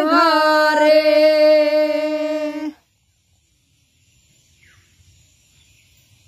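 A woman and a boy singing the long final note of a Bengali folk song without accompaniment, held at a steady pitch until it breaks off abruptly a little under three seconds in. After that there is only a faint hiss.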